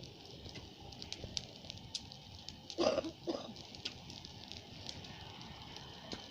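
Large bonfire crackling and popping, with scattered sharp snaps over a steady hiss. About three seconds in comes a brief louder pitched sound in two quick parts, like a short call or voice.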